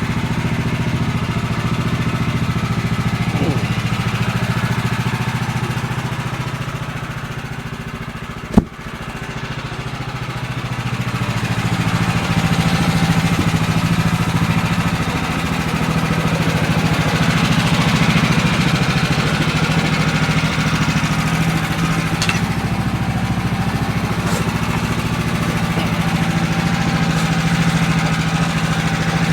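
Sawmill engine running steadily while a red oak log is sawn into a cant. About eight seconds in the sound sags and there is a single sharp click. It then comes back up louder, with more hiss, and holds there.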